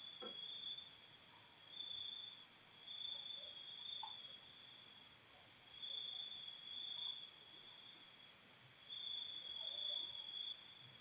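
Insects chirping: a steady high-pitched trill that swells and fades every second or two, with faint short high pulses in groups of about three above it.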